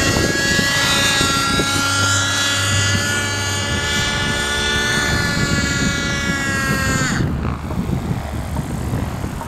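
Raptor 50SE V2 nitro RC helicopter in flight: a steady, high engine-and-rotor whine with many overtones. About seven seconds in the whine drops away sharply as the engine is brought down for an autorotation landing, leaving a fainter, rougher noise.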